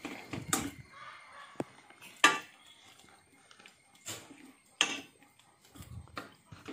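A metal spoon knocking and scraping against a stainless steel pot while thick curry is stirred: a few scattered sharp clicks and knocks, mixed with bumps from the phone being handled.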